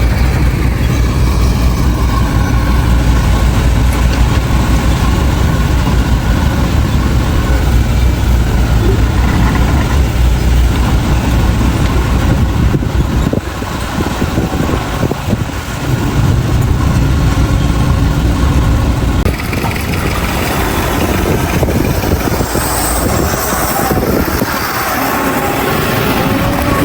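Heavy diesel earthmoving machinery running, with a deep, steady engine rumble that thins out about two-thirds of the way through.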